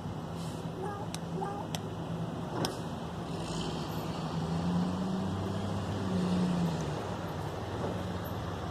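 A crow makes a few sharp clicks and short soft calls while begging for food, over a steady low engine hum that swells for a moment about five seconds in.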